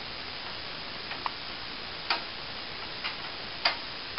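About five light, uneven clicks of a screwdriver working the screw of a metal expansion-slot cover on a PC case, over a steady faint hiss.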